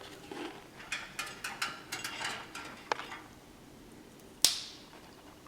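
A parrot picking among sunflower seeds on paper: light clicks and rustles, with one sharper click about four and a half seconds in.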